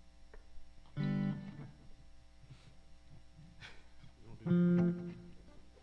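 Guitar playing two short chords, about a second in and again near the end, each damped after about half a second, as the players try chords to settle the key for the next song.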